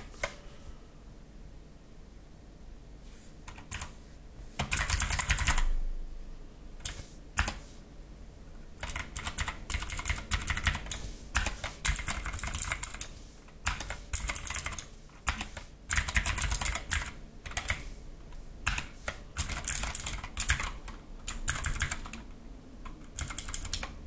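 Typing on an Ajazz AK33 mechanical keyboard with clicky blue-style switches: rapid runs of key clicks in bursts of a second or two with short pauses between, starting about four seconds in.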